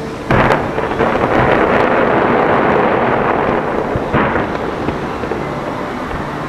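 Fireworks going off: a sharp bang about a third of a second in, then a dense, continuous din of many overlapping bursts, with another loud burst about four seconds in.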